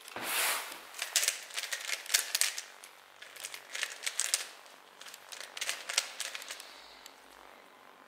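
Rubik's cube handled and turned in the hand: a quick run of small plastic clicks and rattles with some rustling, dying away near the end.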